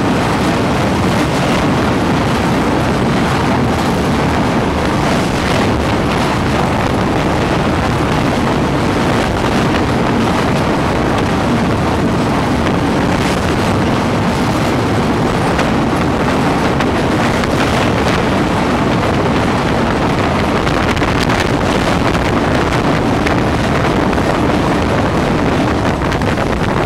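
Passenger coach of a Rajdhani Express rumbling steadily over a long river bridge, heard from on board through an open window, with scattered clicks from the wheels.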